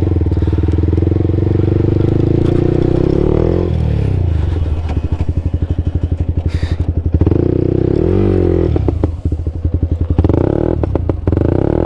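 Motorcycle engine running at low speed, its firing pulses plainly audible, revved up briefly about four seconds in and again near nine seconds. Some knocks and rattles are heard near the end.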